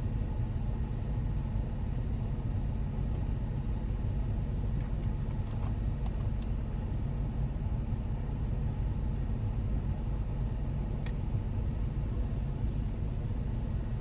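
Steady low rumble inside a Jeep Wrangler's cabin with the engine idling and the air conditioning running, with a few faint clicks about five and eleven seconds in.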